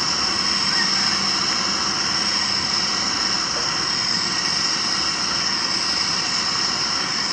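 Steady hissing roar from a gas-fired traditional popcorn machine while its heated vessel is turned by hand, running evenly without a break.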